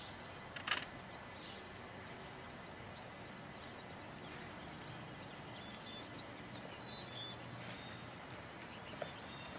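Quiet outdoor ambience with small birds chirping on and off, and a brief clatter about a second in.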